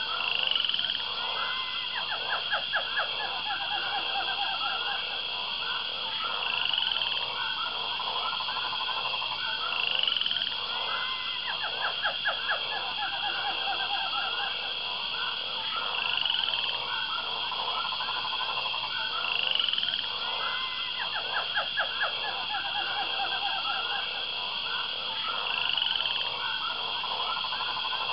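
Chorus of frogs croaking in rapid pulsed trains over a steady high insect buzz, with short rising chirps every few seconds. The same pattern repeats about every ten seconds.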